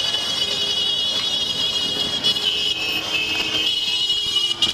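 A high-pitched electric vehicle horn sounds almost without a break, stopping briefly twice, over the hum of street traffic.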